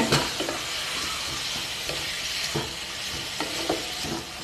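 Mixed vegetables sizzling in a kadai with mustard paste and a little water just added, as a spatula stirs them; a steady hiss with a few short scrapes and knocks of the spatula against the pan.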